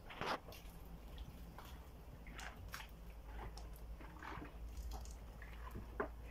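Faint footsteps and scuffs on a tiled floor, with phone handling noise, over a low steady rumble.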